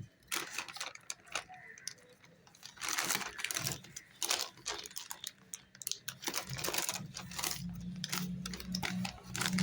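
Irregular clicks, taps and rustling from a wristwatch box and its packaging being handled and opened. A low steady hum comes in about seven seconds in.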